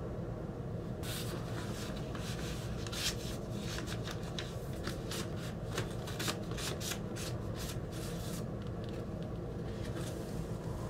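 A vinyl LP and its paper sleeve are being handled, and the record is slid into the sleeve, giving a dense run of quick paper rustles and scrapes from about a second in until near the end. A steady low hum runs underneath.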